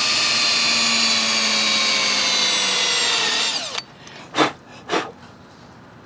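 Power drill with a small twist bit running steadily as it bores a hole through a plastic hood mount; its motor whine sags a little under load, then winds down about three and a half seconds in. Two short bursts about half a second apart follow.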